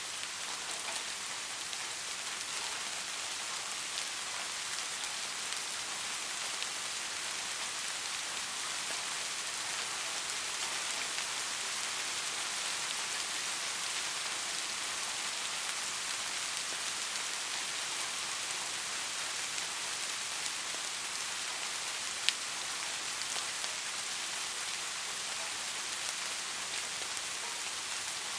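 Steady rain falling and pattering on a surface, an even hiss with scattered drop ticks. A single sharper drop or tick stands out about 22 seconds in.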